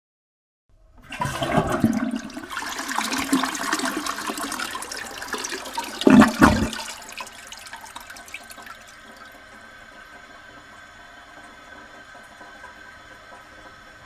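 A toilet flushing: a rush of water starts about a second in and swirls loudly, with a louder surge about six seconds in. It then dies down to a quieter steady hiss.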